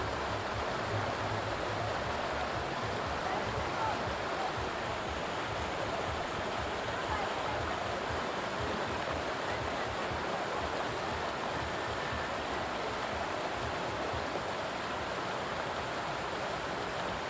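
Waterfall's falling water rushing steadily, an even hiss with no breaks.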